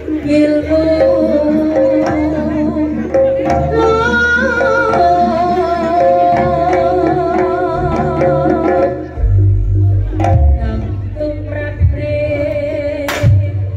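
Jaranan music played live: a gamelan-style ensemble with a wavering sung or reed melody over it and hand-drum strokes. Heavy low drum beats come in about nine seconds in.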